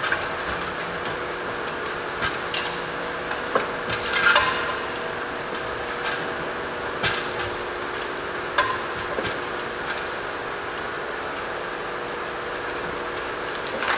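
Scattered metallic clinks and knocks at irregular intervals as an Audi TFSI engine hanging from a shop crane is worked by hand into the engine bay, over a steady background hum.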